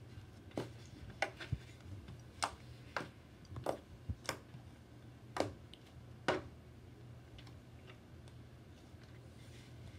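Fluffy slime being squeezed and stretched by hand, giving irregular sharp little pops and clicks, most of them in the first six seconds, then only a few faint ones.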